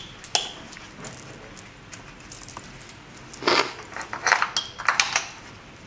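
Light metallic clinks and rattles as the compression tester's fitting and hose are handled on the engine's cylinder head: one click just after the start, then a quick cluster of clinks from about three and a half to five seconds in.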